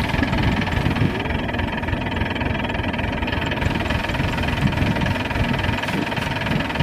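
Maxxi HD85 Turbo combine harvester's engine running steadily.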